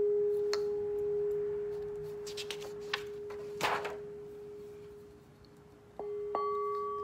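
Brass singing bowl ringing with one steady tone that slowly fades. A few soft handling knocks come midway, then the bowl is struck again with a felt-covered mallet about six seconds in and rings out with higher overtones.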